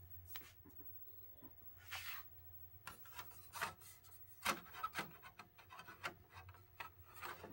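Disc tray of a TV/DVD combo opening, then a DVD being laid on the plastic tray and pressed into place by hand: soft rubbing and scattered light clicks of disc on plastic.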